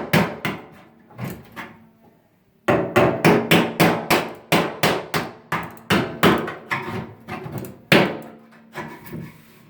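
Rapid hammer blows striking a microwave oven as it is smashed apart for salvage, about three a second, with a short pause about two seconds in and lighter strikes near the end.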